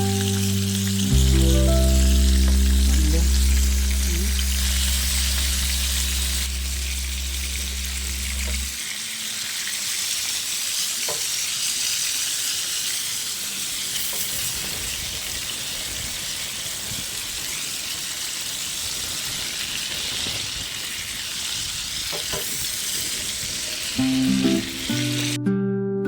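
A steady sizzling hiss with a few faint ticks. It is heard under held background-music notes that stop about nine seconds in. Plucked music starts again near the end.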